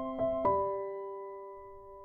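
Background keyboard music in a piano tone: two notes struck in quick succession, then a chord left ringing and slowly fading.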